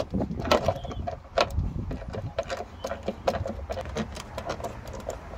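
Small hand socket ratchet clicking in quick, uneven runs as it is swung back and forth to undo a bolt in a car body panel.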